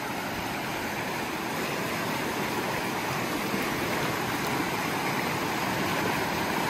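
Steady rush of a shallow creek flowing over rocks, with water washing in and out of a plastic gold pan being panned in the current.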